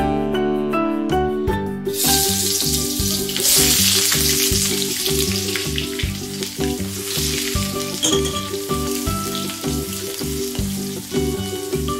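Pounded garlic and sliced ginger sizzling as they fry in hot oil in a wok; the sizzle starts suddenly about two seconds in as the garlic goes into the oil, and is later stirred with a spatula. Background music plays throughout.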